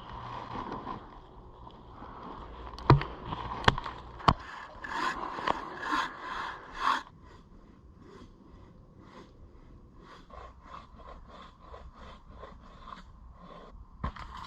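Wood being worked by hand. Three sharp knocks come about three to four seconds in, then a few seconds of scraping, then a quieter run of quick, even rasping strokes.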